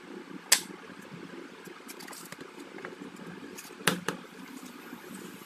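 Handling clicks and knocks of a smartphone with a suction cup on its back glass and a plastic pry card on a tabletop: a sharp click about half a second in, and a quick double knock near four seconds as the phone is laid down, over a steady low hum.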